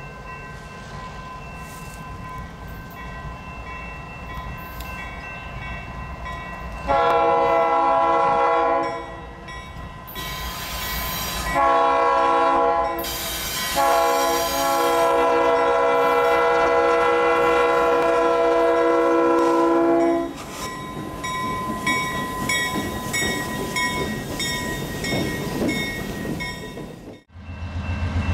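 Iowa Interstate GE ES44AC diesel locomotive approaching with its engine rumbling, then sounding its multi-chime air horn: a long blast about seven seconds in, a short one, and a long blast of about six seconds. After the horn, the wheels click steadily over the rail joints as the locomotives pass.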